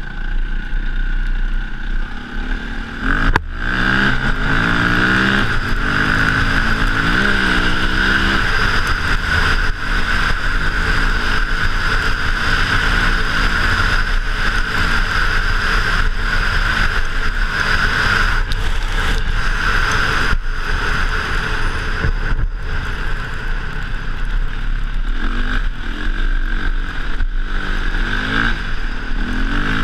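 KTM dirt bike engine running under way, the engine picking up about three seconds in, then revving up and down as the throttle opens and closes, its pitch rising and falling repeatedly.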